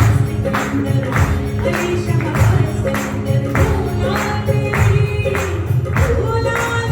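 Music with a steady beat, a percussive stroke about twice a second over sustained held tones.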